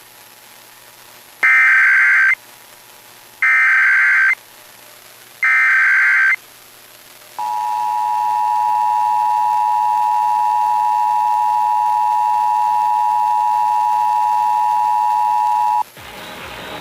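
Emergency Alert System alert over a radio broadcast: three one-second bursts of SAME digital header data about two seconds apart, then the steady two-tone attention signal for about eight and a half seconds, which cuts off abruptly near the end.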